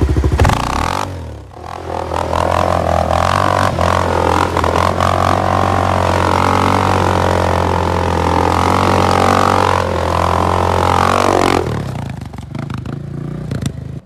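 ATV engine running at steady revs while the quad is ridden, dipping briefly about a second and a half in. The engine sound stops abruptly a couple of seconds before the end, and quieter noise follows.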